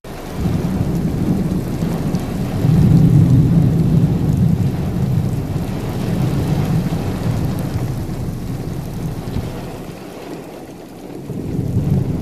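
Thunder rumbling through heavy, steady rain, the rumble loudest a few seconds in and easing after.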